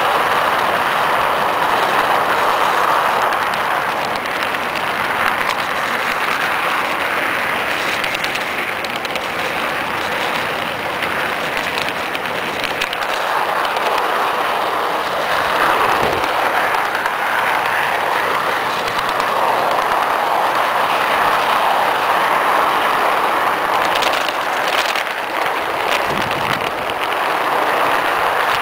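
Garden-railway train rolling steadily along its track, the wheels running on the rails in a continuous rumbling hiss, heard right on the moving train; a couple of sharper clicks come a few seconds before the end.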